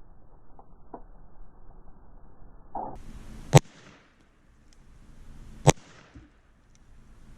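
Two gunshots from a Colt .45 revolver, about two seconds apart. Each is a single sharp crack.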